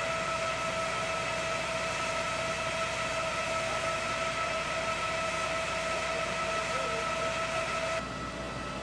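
Steady machinery hum with a high whine from military equipment on a Patriot missile system, which cuts off abruptly near the end.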